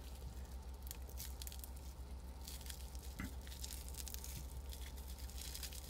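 Hands unwrapping a small bundle of plastic wrapping and tape: soft, scattered crinkling and rustling, over a steady low hum.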